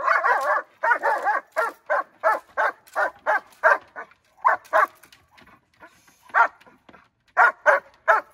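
Young German Shepherd barking in a rapid series, about three barks a second, at a decoy holding a bite wedge during protection training. The barking pauses for a couple of seconds about five seconds in, then starts again near the end.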